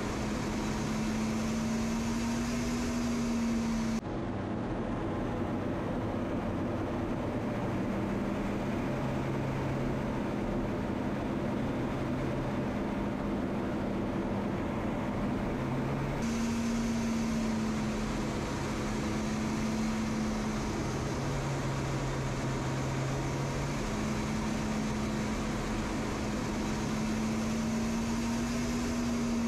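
Steady jet aircraft noise: a rushing drone with low humming tones that shift slightly in pitch. The sound changes character abruptly about four seconds in and again about sixteen seconds in.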